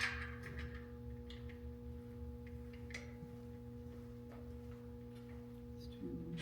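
A few light clicks and knocks from stand parts and screws being handled during assembly, over a steady electrical hum.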